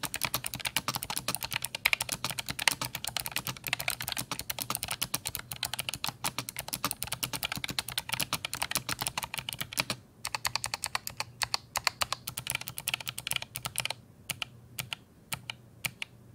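Typing on an ASUS ROG Claymore II keyboard fitted with ROG RX Blue clicky switches: a fast, dense run of sharp key clicks. There is a brief pause about ten seconds in, and the clicks thin out near the end.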